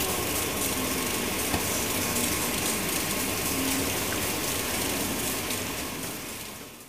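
Steady rushing noise from an asphalt mixing plant running, fading out in the last second.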